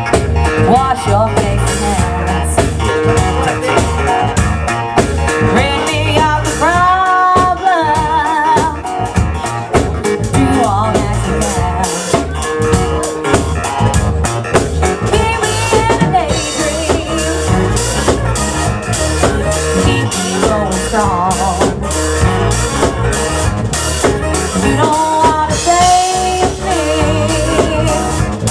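Live band playing loudly: drum kit keeping a steady beat, bass guitar and guitar, with a singer's voice rising above it about a quarter of the way in and again near the end.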